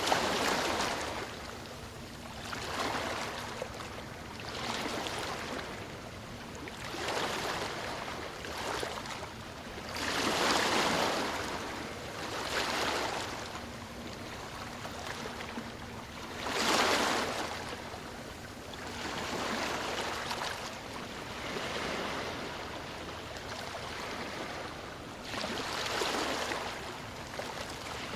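Sea waves breaking and washing in, swell after swell of surf noise every two to three seconds, with the biggest surges about ten and seventeen seconds in.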